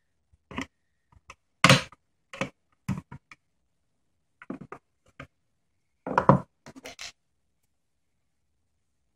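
A small metal tool scraping and clicking against the plastic and sheet-metal parts of an opened CD-ROM drive during disassembly: irregular short scrapes and knocks, the loudest about two seconds in, stopping about seven seconds in.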